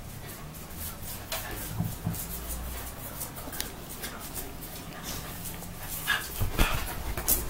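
Jack Russell terrier whimpering and whining off and on, in short calls that come more often and louder in the second half, stirred up by cats on the TV screen.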